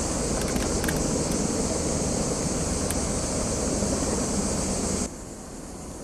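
Steady outdoor background noise with a high hiss, with a few faint clicks in the first second; the level drops abruptly about five seconds in.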